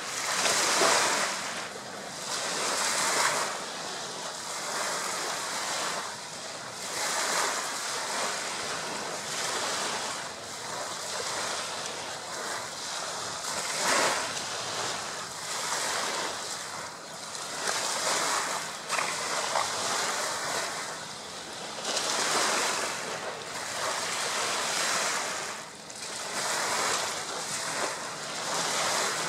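Small lake waves lapping and washing onto a shingly beach, swelling and falling away in irregular surges every few seconds.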